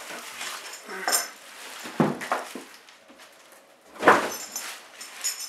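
Handling noise as a plastic-wrapped small engine is lifted out of its cardboard box: plastic crinkling and rustling, with a couple of knocks. The loudest knock comes about four seconds in, as the engine is set down on a wooden workbench.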